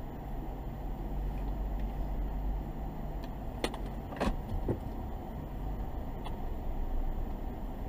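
Steady low rumble of a car's engine and road noise, picked up by a dashcam inside the cabin, with three short knocks around the middle.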